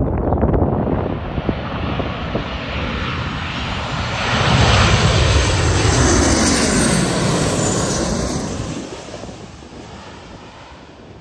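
Twin-engine jet airliner passing low overhead on landing approach: its engine noise builds, is loudest from about four to eight seconds in, and falls in pitch as it moves away. Strong wind buffets the microphone near the start.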